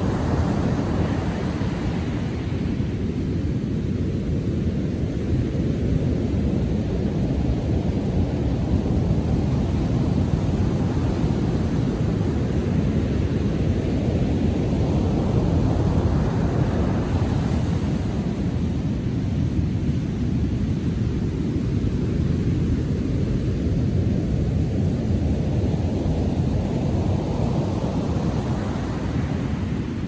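Rough ocean surf after a storm breaking on a sandy beach: a constant low rumble of heavy waves, with the hissing wash of a breaker swelling up about a second in, again around the middle and once more near the end.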